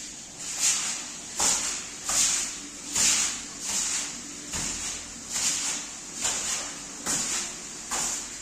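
Repeated scrubbing or scraping strokes across a rug, about one every 0.8 seconds, each a swish with a sharp start, in an even rhythm.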